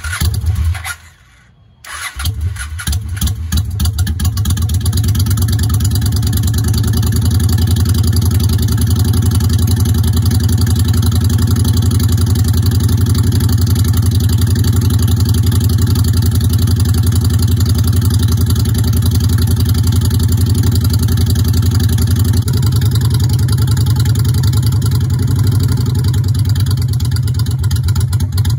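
Honda Shadow Spirit 750 V-twin being started on a newly fitted battery: a brief first try that stops within a second, then the engine fires up about two seconds in and settles into a steady idle.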